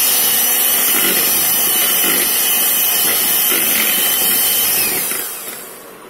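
Electric hand blender motor running at full speed with a steady high whine as it beats cake batter, then winding down with a falling whine and stopping about five seconds in.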